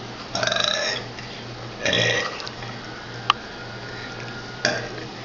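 A person burping letters of the alphabet: three separate burped letters, each about half a second long, with a sharp click between the second and third.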